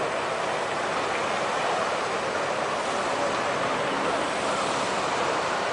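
Tsunami flood water surging through a coastal town, a steady rushing noise with no separate crashes or impacts standing out.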